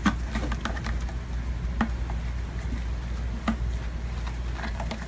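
Cats playing on a carpeted cat tree: scattered light taps and scratches of paws and claws, a few sharper ones, over a steady low hum.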